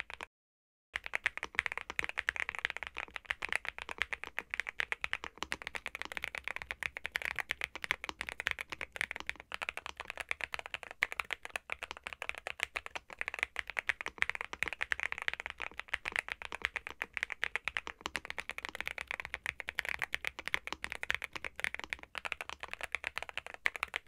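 Continuous typing on a NuPhy Gem80 mechanical keyboard with stock Gateron x NuPhy Raspberry linear switches: a dense, steady run of keystrokes that starts about a second in.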